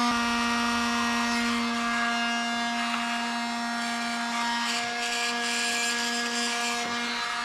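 Electric heat gun running steadily, its fan motor giving a constant hum with a whine above it.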